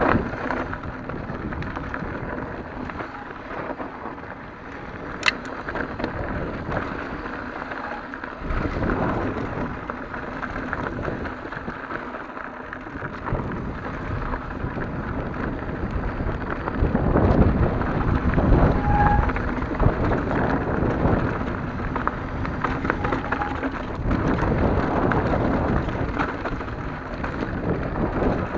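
Santa Cruz Hightower mountain bike ridden down a loose, rocky dirt trail: tyres crunching over gravel and stones with continuous rattling, and wind on the chest-mounted camera's microphone. A single sharp knock comes about five seconds in, and the noise gets louder and rougher a little past the halfway point.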